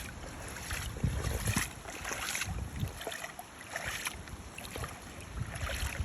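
Kayak paddle strokes splashing in floodwater, irregular swishes, with wind buffeting the microphone in low rumbles.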